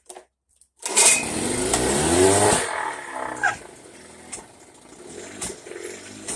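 1979 Chrysler 9.9 two-stroke outboard motor running: it comes in loudly about a second in and revs up, then drops to a lower, uneven running with sharp pops every second or so, the sneezing heard from this motor.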